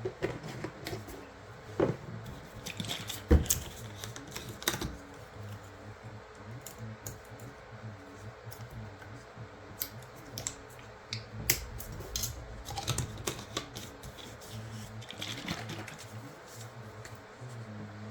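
A run of irregular light clicks and knocks, like small objects being handled and set down, over a low steady hum.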